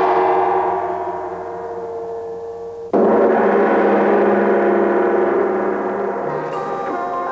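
Gong-like metallic strikes on the soundtrack: one already ringing and slowly fading, then a second sharp strike about three seconds in that rings on and dies away.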